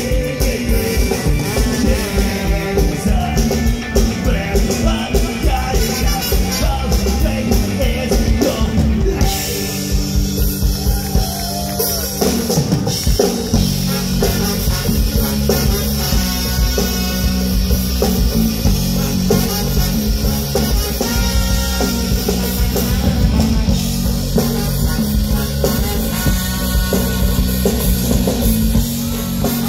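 Music with a steady drum beat, playing throughout; the texture changes about nine seconds in.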